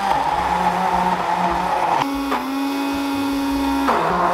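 Electric immersion blender running in a plastic beaker, puréeing blanched curly endive into a cream. Its motor pitch jumps higher about halfway through and drops back near the end as the load on the blades changes.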